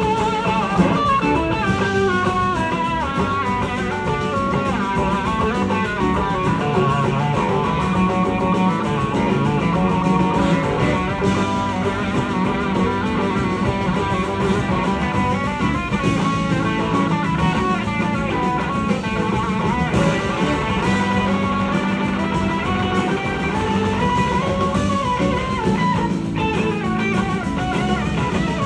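Live rock band playing, with an electric guitar on a red SG-style guitar taking a lead line of gliding, bending notes over drums and bass.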